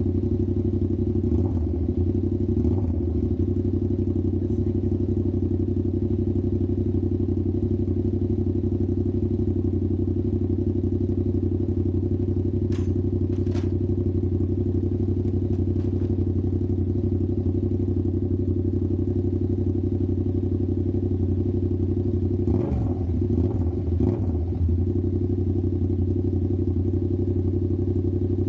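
Yamaha R7's parallel-twin engine idling steadily through an aftermarket SC Project-style exhaust with its dB killer removed. There are a couple of light throttle blips near the start and two more about 23 and 24 seconds in.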